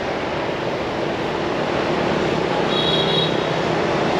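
Road traffic passing as a steady rush of noise that slowly grows louder, with a brief high beep about three seconds in.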